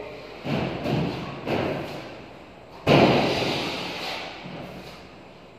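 A series of thuds: three knocks about half a second apart in the first two seconds, then a louder thud just before three seconds in that rings on and fades over about two seconds.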